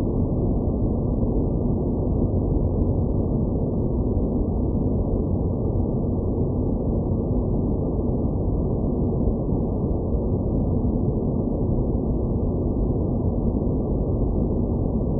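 Synthetic space-ambience noise: a steady, unchanging low rumble with nothing high in it, made as a sound effect for an alien planet.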